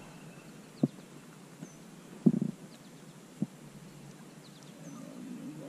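Three short knocks on a kayak while a just-caught crappie is being handled, the loudest about two seconds in. Faint high chirps sound in the background.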